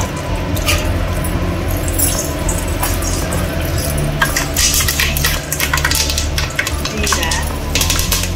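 Curry leaves frying in hot mustard oil in an aluminium pot, crackling and spitting, with the crackles coming thick and fast in the second half, over a steady low hum.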